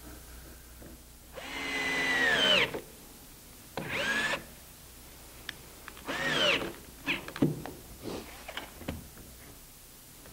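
A handheld power tool's motor run in three short bursts of about a second each, its pitch dropping away at the end of each burst, followed by a few light clicks and knocks.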